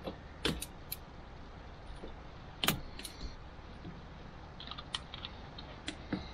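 Scattered light clicks and taps of a flat-bladed screwdriver working against the plastic spring tabs and bezel of a door-mounted power window switch as it is pried out of the panel, the loudest click about two and a half seconds in.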